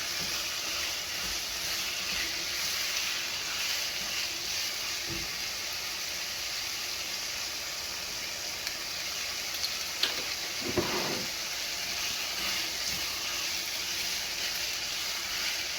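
Minced beef and vegetable meat-pie filling sizzling steadily in a frying pan, with a couple of light knocks about ten seconds in.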